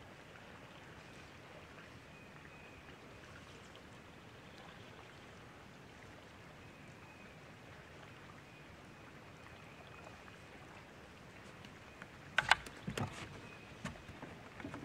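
Faint lapping of water against a bass boat's hull, then about twelve seconds in a quick run of loud knocks and clatters on the boat's front deck.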